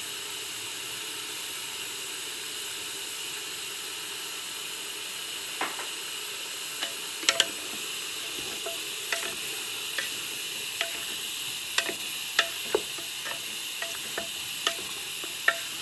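Wooden spoon stirring seasoned meat in an aluminium pressure cooker, knocking and clicking irregularly against the pot from about a third of the way in, over a steady hiss.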